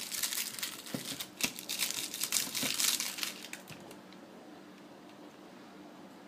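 Coin packaging being unwrapped by hand: a dense run of crinkling and crackling for about four seconds, then only a faint steady hum.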